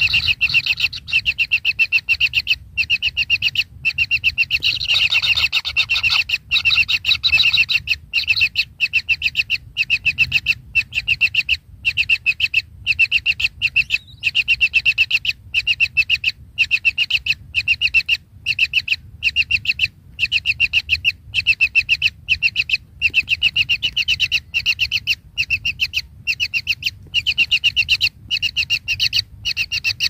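Kingfisher nestlings calling: a continuous run of short, high chirps, many a second, in long trains broken by brief pauses.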